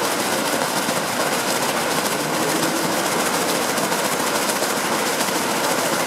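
Fountain water pouring over the rim of its bowl and splashing into the pool below, a steady rushing splash.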